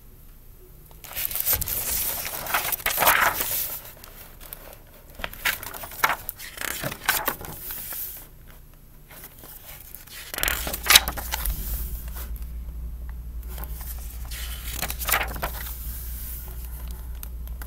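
A hardcover picture book being opened and its pages turned by hand: several short bursts of paper and cover handling noise. A low steady hum comes in about ten seconds in.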